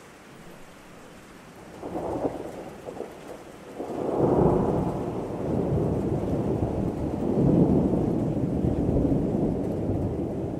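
Thunder rumbling over steady rain. A first roll comes about two seconds in, and a longer, louder rumble builds from about four seconds and swells again past the middle.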